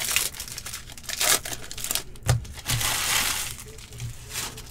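Foil wrapper of a trading-card pack being torn open and crinkled, in several short crackling bursts, the longest lasting most of a second about three seconds in.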